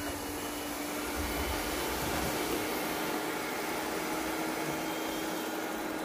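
Four robot vacuums (dSer 23T, iLife A4s Pro, Pure Clean and Yeedi K600) running together: a steady motor and brush whir with an even hum underneath.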